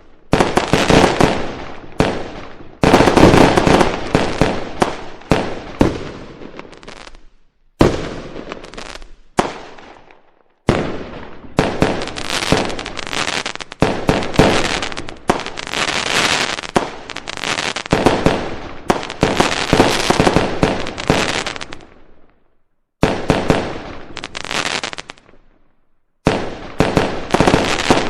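Strings of firecrackers going off in rapid, dense cracking runs lasting several seconds each, broken by a few short gaps.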